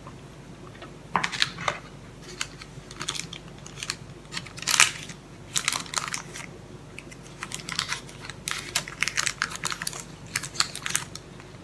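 Baking paper crinkling and crackling in irregular runs of quick, sharp ticks as it is folded and pressed down along the edges of a loaf tin.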